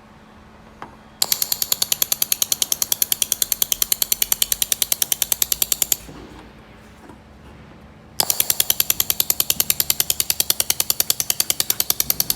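Laser welder firing rapid pulses on thin steel sheet: two runs of sharp crackling ticks at about ten a second, the first lasting about five seconds and the second starting about eight seconds in.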